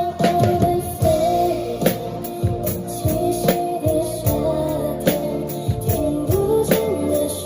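Music with a steady beat and a sustained melody line; singing may be in it but no clear vocal is picked out.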